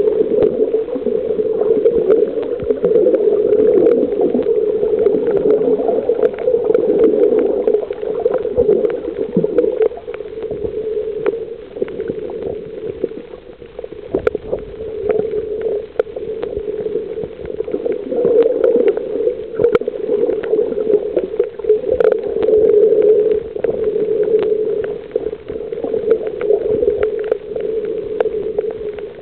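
Muffled underwater sound from a camera held below the surface while snorkeling on a reef: a steady low rushing of water, with many scattered sharp clicks and crackles throughout.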